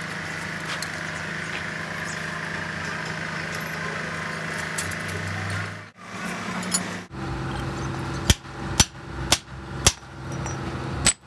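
Metal lathe running with a steady hum. Then hammer blows on a steel truck input shaft: four sharp strikes about half a second apart, the first the loudest, and one more after a short pause near the end, over a steady low hum.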